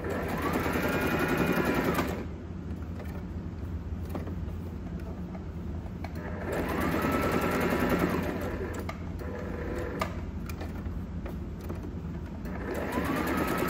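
Brother mechanical sewing machine stitching in three short runs of a couple of seconds each, with pauses between them. In each run the motor's whine rises in pitch as it speeds up under the foot pedal and drops as it stops. The pauses are where the needle is left down in the fabric and the work is turned at a corner.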